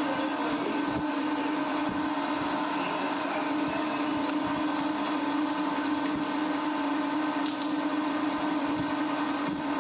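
Workshop machine running with a steady, even hum, with a few faint knocks.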